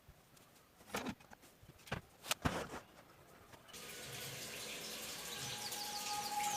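A few light clicks and knocks, then water running from a tap from about halfway through, slowly getting louder.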